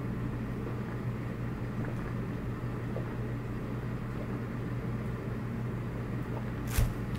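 Steady low mechanical hum of room tone, with a single knock near the end.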